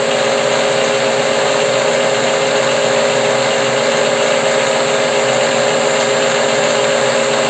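Weisan CJM360 metal lathe's spindle running steadily in reverse, driven by its motor through a newly fitted frequency inverter: an even mechanical hum with a steady whine.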